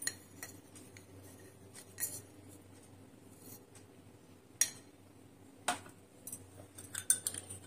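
A metal spoon clinking against glass tumblers, and a glass set down on a tray: a few scattered light taps, with a quick cluster of small clinks near the end.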